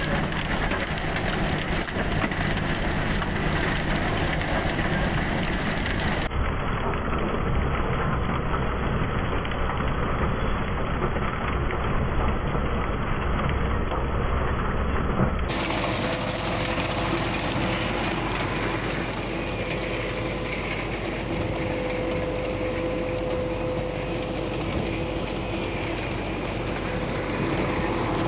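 MTZ-80 tractor's four-cylinder diesel running under load while it pulls an SZ-3.6 seed drill through the field, with the drill's mechanism rattling and clattering as it sows. The sound changes abruptly twice, about six and fifteen seconds in; in the last part a steady engine drone with a held tone comes through more clearly.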